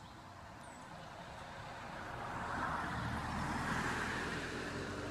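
A road vehicle passing by: tyre and engine noise swells slowly to a peak about three to four seconds in, then fades.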